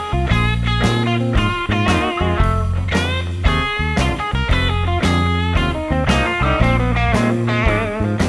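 Background music: a plucked guitar melody over a strong bass line with a steady beat.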